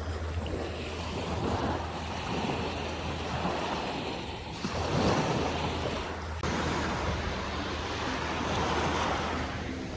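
Small waves washing on a beach, with wind on the microphone.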